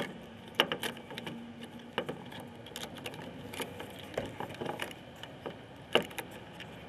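A plastic fishing bobber and lighters clicking and rattling against each other and the sides of a snuff can as they are pressed into it: scattered light clicks, a few sharper ones spread through.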